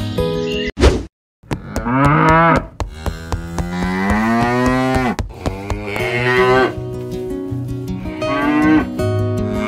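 Cattle mooing: four drawn-out calls that rise and fall in pitch, the second one long, with a fifth starting near the end. Steady background music plays underneath, broken by a brief silence about a second in.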